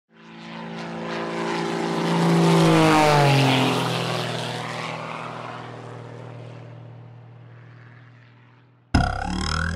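A propeller aircraft flying past: it rises out of silence, its engine pitch drops as it passes about three seconds in, then it fades away. Near the end a brief, louder sound of a different kind starts and cuts off abruptly.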